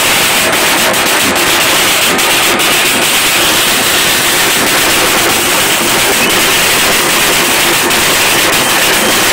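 A band of shoulder-slung drums being beaten loud and fast for dancing, a dense, continuous wall of drumming.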